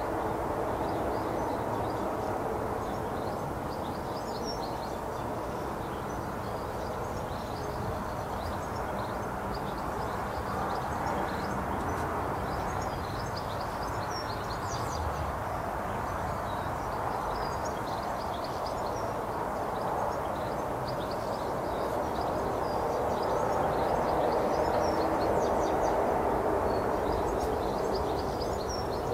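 Small birds chirping in the background, many short high calls scattered throughout, over a steady low rumble that swells louder a little before the end.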